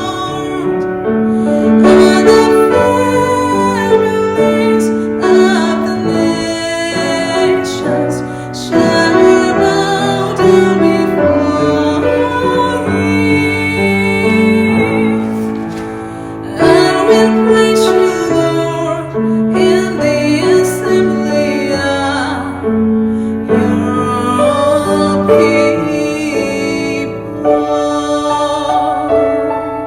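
A woman singing a worship song, her voice wavering in pitch on held notes, over piano accompaniment.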